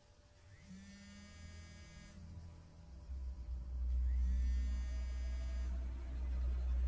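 Mobile phone lying on rocks ringing unanswered with two buzzing rings, each about a second and a half long. A deep low drone swells under it about three seconds in and becomes the loudest sound.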